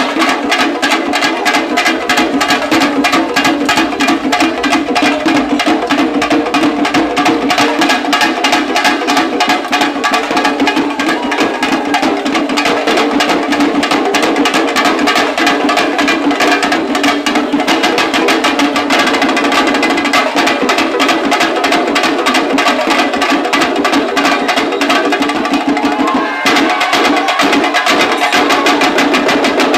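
A troupe of chenda drums played loud in a fast, dense rhythm, the pattern changing about 26 seconds in.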